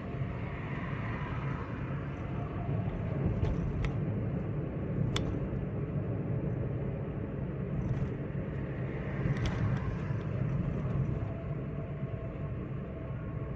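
Steady low rumble of a Chevrolet Spin 1.2 cruising at highway speed, engine and tyre noise heard from inside the cabin, with a few brief sharp clicks.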